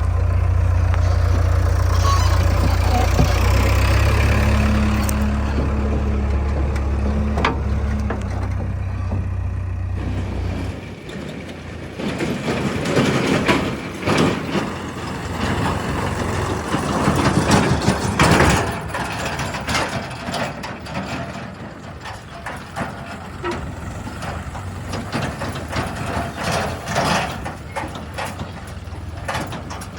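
A heavy diesel engine running steadily with a low drone. About ten seconds in the drone drops away, and a run of irregular clattering and knocking follows, heaviest in the middle, with the engine still running underneath.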